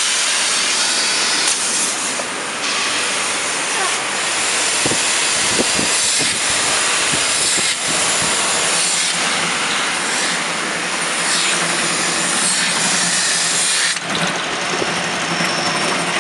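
Rotary water-bottle filling and capping machine running: a steady loud hiss and rattle with a few sharp knocks. Near the end the hiss thins and a faint high whine comes in.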